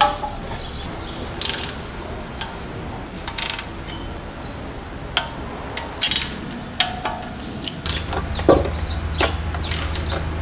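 Torque wrench ratcheting and clicking in short bursts a second or two apart as the oil splash shield bolts are tightened to 15 foot-pounds. Near the end a steady low hum comes in, with a few more metal knocks.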